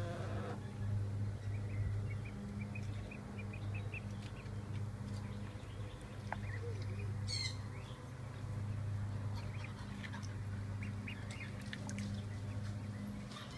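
Ducklings peeping in small, repeated high chirps, with one louder call about halfway through, over a steady low hum.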